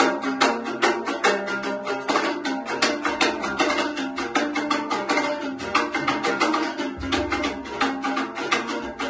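Kyrgyz komuz, a fretless three-string lute, played with fast, even strumming of a folk tune.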